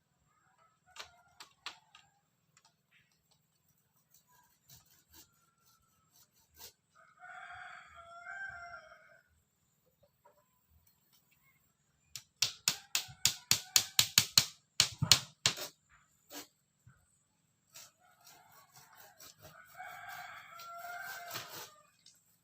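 Village rooster crowing twice, once about seven seconds in and again near the end. Between the crows comes a quick run of loud, sharp knocks, about five a second, which is the loudest sound here.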